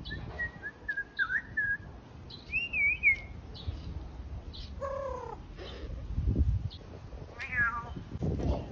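African grey parrot whistling and calling: a thin whistle that wavers in pitch over the first two seconds, a higher warbling whistle around three seconds in, then a short call about five seconds in and a quick, rapidly stepping call near the end.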